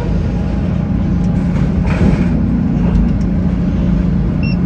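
Sawmill head-rig machinery running, a steady, loud low drone heard from the sawyer's cab, with a brief swell of noise about two seconds in. Two short high beeps near the end.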